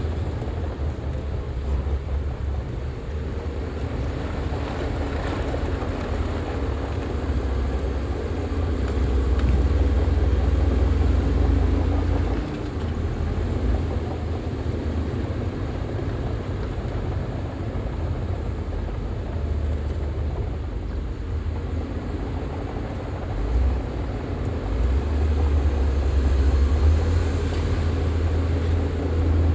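Heavy earthmoving machine's diesel engine running with a deep, low sound, swelling louder twice: about a third of the way in and again near the end.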